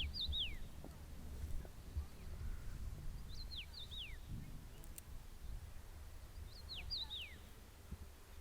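A songbird repeating the same short phrase of quick, falling whistled notes three times, about three seconds apart, over a steady low rumble.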